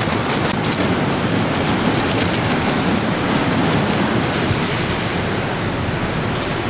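Hurricane-force wind with wind-driven rain, a loud, steady rushing noise with wind buffeting the microphone.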